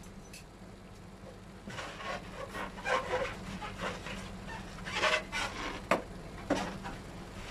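Clear plastic wrap crinkling and rustling in irregular bursts as it is gathered and handled by hand, over a steady low hum.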